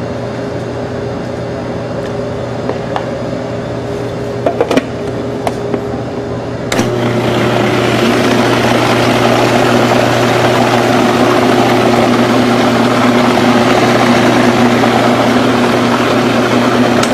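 Plastic food processor: a few clicks as the lid is set in place about four to five seconds in, then the motor switches on about seven seconds in and runs steadily, blending batter of flour, Parmesan, egg and milk.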